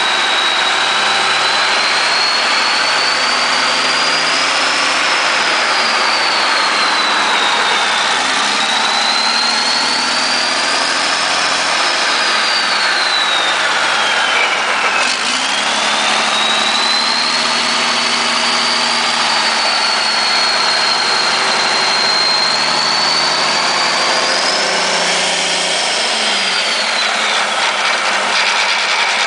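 International Harvester inline diesel engine, out of its tractor, running with its speed slowly rising and falling several times. A high whine follows the engine speed up and down, dipping about halfway through and dropping again near the end.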